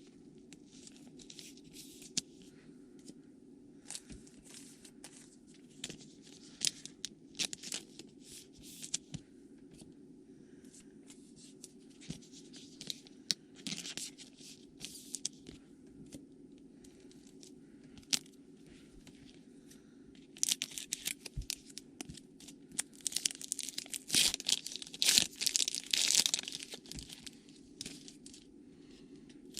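Trading card pack wrappers being torn open and crinkled in short bursts. A denser run of tearing and crinkling near the end is the loudest part.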